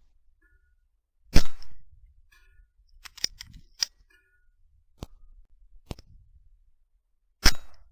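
Two rifle shots, one about a second and a half in and one near the end, each a sharp crack with a brief tail, with a few fainter clicks in between.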